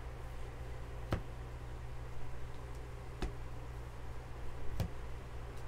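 Baseball trading cards being thumbed through by hand, with three sharp single clicks as cards snap off the stack, over a low steady hum.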